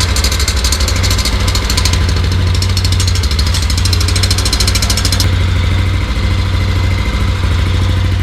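Yamaha Aerox 155 scooter's single-cylinder engine idling steadily through an adjustable JVT V3 aftermarket exhaust, set to its mid position, with a deep, bassy note. A fine rapid ticking rides on top and stops about five seconds in.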